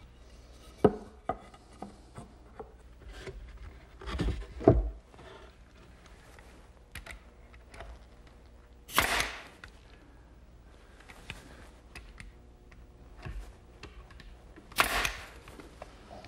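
Pine cabinet parts being handled and knocked into place, with scattered clicks and a cluster of thumps a little after four seconds. Two loud, sharp shots from a pneumatic brad nailer come about halfway through and again near the end, roughly six seconds apart.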